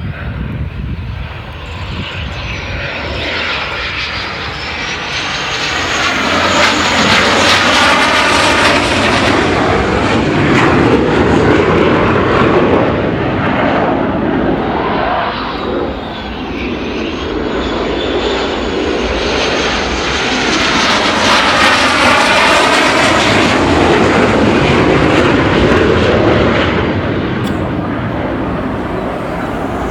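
Blue Angels F/A-18 jets landing: jet engines run loud and steady with a high whine, swelling twice as two jets pass close and then fading.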